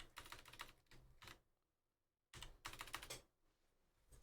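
Trading cards being flipped through by hand, making faint runs of rapid clicks, with a pause of about a second in the middle.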